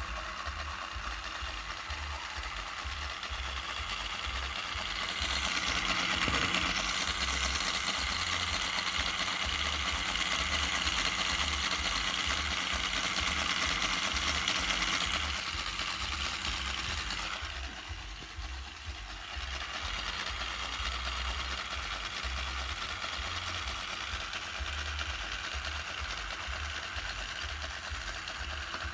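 Small electric motor inside a LEGO tractor running steadily, turning the crankshaft of a LEGO model engine. It gets louder about a fifth of the way in and drops briefly a little past the middle.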